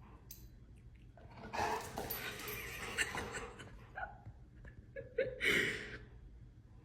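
A dog making breathy vocal noises in two bursts: a longer one about a second and a half in, and a shorter, louder one near the end.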